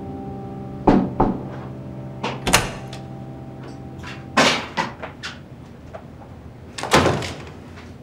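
A series of sharp knocks and clunks, the loudest about a second in and about seven seconds in, typical of a door being opened and shut. A held music chord fades out about halfway through.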